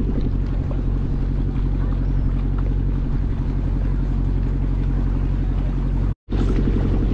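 Small ferry boat's engine running steadily at cruising speed, a low even hum heard from on board. The sound cuts out for a moment a little after six seconds in, then carries on unchanged.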